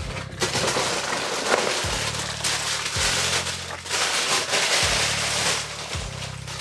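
Tissue paper rustling and crinkling as it is pulled out of a cardboard shoebox, over background music with a low bass line.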